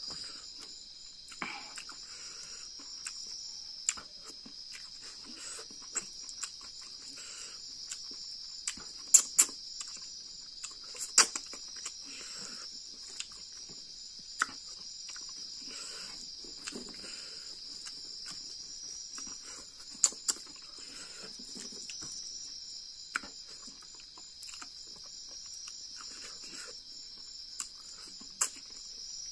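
Close-up hand-eating sounds: fingers squishing and mixing rice and fish on a plate, chewing and lip smacks, with a few sharp clicks. Behind them, a steady high trill of crickets.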